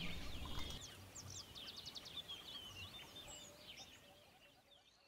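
Faint birds chirping and twittering over quiet room tone, dying away about four seconds in to near silence.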